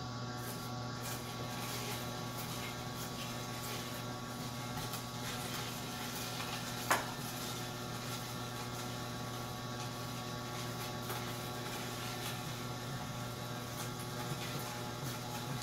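Masticating (slow) juicer running, its electric motor giving a steady low hum while it presses cucumber. One brief sharp sound comes about seven seconds in.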